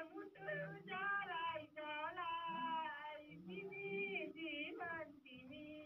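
A woman singing alone, with held, bending notes, heard through a telephone line.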